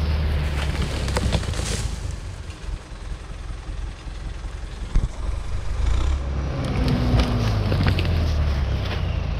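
LKT 81 Turbo forestry skidder's turbo diesel engine running, with its winch cable out to a felled fir log. The engine runs steadily, dipping in the middle and picking up again in the second half, with one sharp knock about five seconds in.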